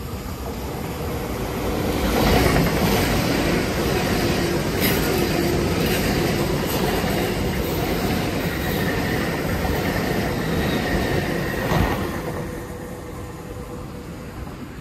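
A Great Western Railway Intercity Express Train passes at speed on its underfloor diesel engines. The rush of the train and its wheels on the rails builds about two seconds in and stays loud while the coaches go by, with a faint high whine late in the pass. It drops away after a sharp knock about twelve seconds in, as the tail clears.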